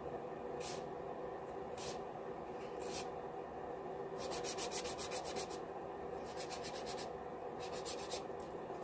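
Acrylic nails being filed on a hand-held straight nail file: a few single scraping strokes, then quick runs of short back-and-forth strokes from about four seconds in.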